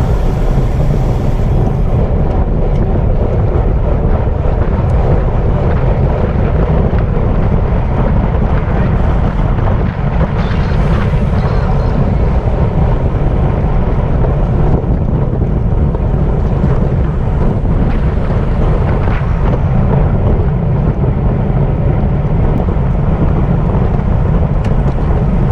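Steady, loud wind rush on the microphone of a camera riding on a racing bicycle at speed.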